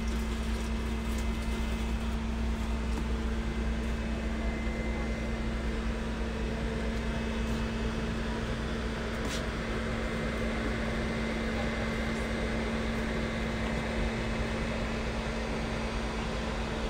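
Steady mechanical hum of a running machine: a constant low droning tone over a deep rumble, with a few faint clicks.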